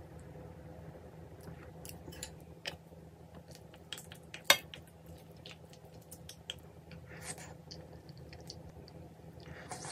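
Cutlery and dishes being handled at a table: scattered light clinks and taps, with one sharp clink about four and a half seconds in, over a steady low hum.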